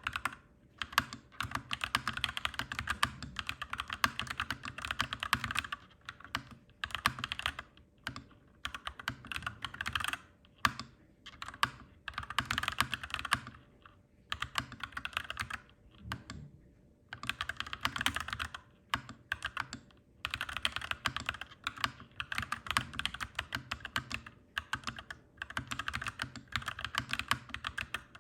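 Typing on a clacky mechanical keyboard: fast runs of key clacks in bursts of a few seconds, broken by short pauses, over a steady low background hum.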